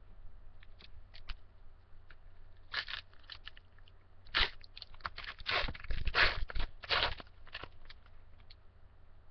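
Foil card-pack wrapper crinkling and tearing as a pack of baseball cards is opened, in irregular bursts with small clicks, busiest from about four and a half to seven seconds in.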